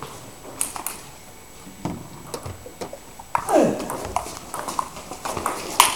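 Celluloid-type table tennis ball clicking off paddles and bouncing on the table during a doubles rally: irregular sharp clicks, coming faster in the second half, with the sharpest one near the end. A short falling squeak sounds about halfway through.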